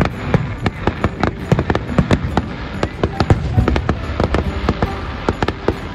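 Fireworks display: a rapid barrage of aerial shells bursting, several sharp bangs and crackles a second, over a deep rumbling boom.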